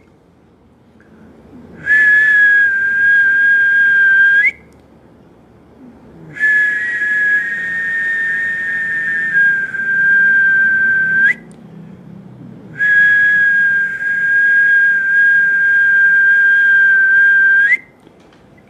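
A person whistling three long, steady notes at the same high pitch, the first shorter than the other two, each ending with a quick upward flick. The whistling is used as sound healing to balance the body.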